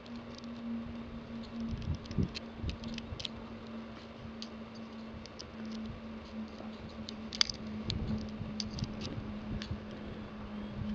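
Small, irregular metallic clicks as .22 LR rimfire cartridges are pressed one at a time into a Whitney Wolverine pistol magazine, each round snapping in under the feed lips. The sharpest click comes about seven seconds in, with a few dull handling knocks along the way.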